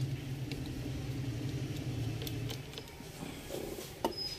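Scattered small clicks and taps of hands and tools working on a laptop cooling fan's housing as it is opened, over a steady low hum that fades about two and a half seconds in.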